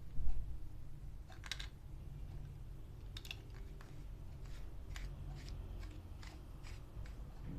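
Handling noise: a low thump on the microphone about a quarter second in, then a scattered series of light plastic clicks and rustles as the voltage detector and its packaging are handled.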